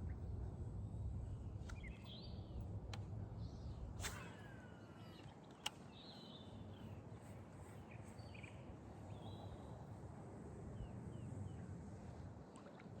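Creekside outdoor ambience: a low rumble that eases about four seconds in, scattered faint bird chirps, and a few sharp clicks, the last and loudest a little over five seconds in.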